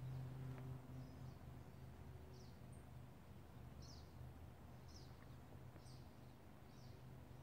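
Near silence, with faint, short high-pitched chirps from a small bird repeating about once a second over a low steady hum.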